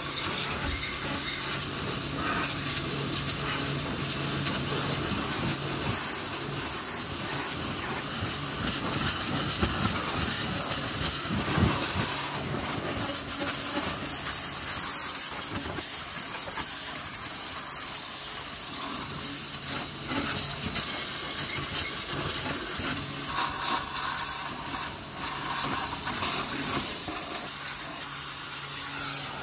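High-pressure washer jet spraying water against the underside and rear of a car, a steady hiss with a low steady hum beneath it.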